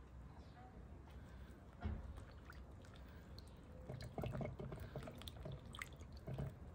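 Hands pressing pieces of bread into liquid in a ceramic bowl: soft wet squelches and small drips, most of them in the second half, with a single light knock about two seconds in.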